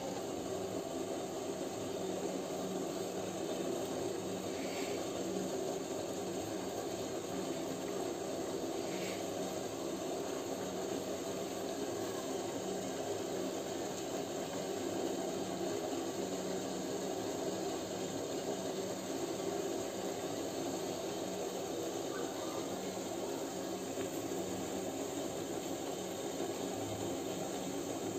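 Gulab jamun balls frying in hot oil over a gas burner: a steady hiss.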